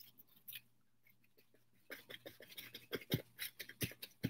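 Crumpled paper napkin dabbing paint onto a stretched canvas: quick, faint, irregular taps, a couple about half a second in, then a dense run from about two seconds in.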